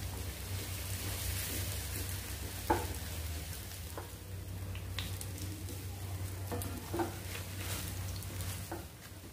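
Breadcrumb-coated potato patties (aloo tikki) sizzling as they shallow-fry in oil in a nonstick frying pan, over a low steady hum. A few short knocks of a wooden spatula against the pan come as the patties are turned.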